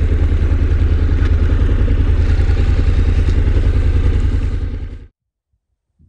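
Honda NC750X parallel-twin motorcycle engine running steadily at low revs, with an even low pulsing. It fades out about five seconds in.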